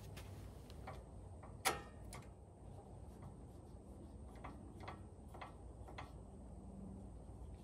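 Metal screw clamp being tightened by hand: one sharp click, then a run of light ticks about two a second as the clamp's handle is turned.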